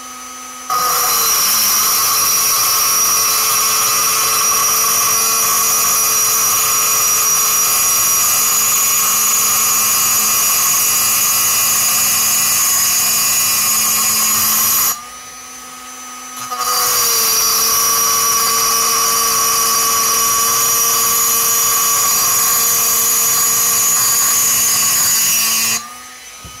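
Handheld electric pencil grinder running at high speed while its bit cuts metal inside the port of a two-stroke chainsaw cylinder, a steady high whine. It runs for about fourteen seconds, stops briefly, then runs again for about nine seconds. Each time the bit bites in, the pitch sags slightly.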